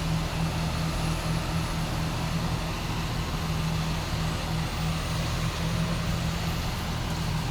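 A large diesel engine running steadily at an even speed: a low, constant drone.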